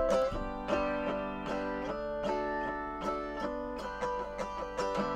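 Autoharp played with a felt pick: a steady run of picked strokes across the strings, each chord ringing on between strokes, with the chord changing several times.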